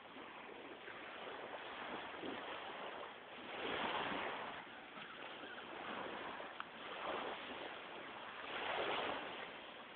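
Sea waves washing on a beach, a steady hiss that swells and falls away about every five seconds.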